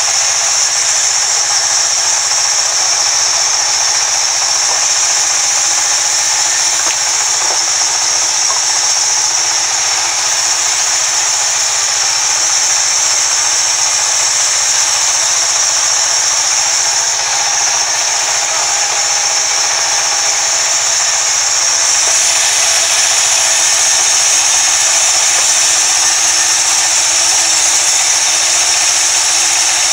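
Large vertical band saw running and cutting lengthwise through a log: a loud, steady high-pitched hiss that grows slightly louder about three-quarters of the way in.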